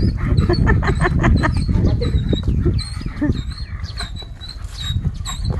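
A dog barking and yelping in short sharp bursts, with repeated brief high-pitched cries over a steady low rumble.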